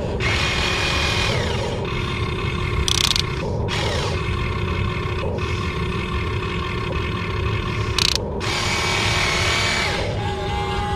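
Small electric gear motors of toy RC construction machines whining as they run, with the sound changing every couple of seconds as different functions start and stop.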